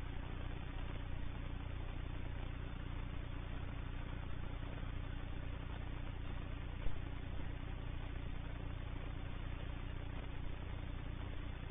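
Van's RV-14 light aircraft's piston engine running at low taxi power, a steady drone, with a single short knock about seven seconds in.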